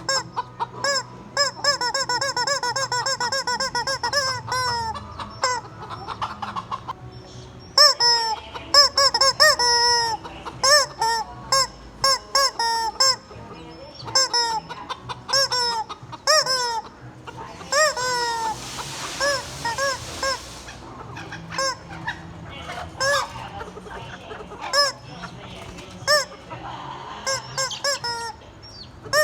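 Rubber chicken toy squeezed into honking squawks: a quick run of about four a second near the start, then scattered single and paired squawks. A burst of hiss comes partway through.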